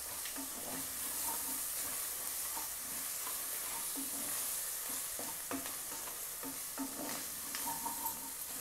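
Wooden spatula stirring and scraping through cashews, mint, coriander and green chillies frying in oil in an aluminium pot: a steady sizzle with scattered short scrapes against the pot.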